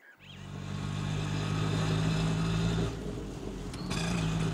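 Auto-rickshaw engine starting to run and fading up to a steady drone, dipping briefly about three seconds in, then picking up again.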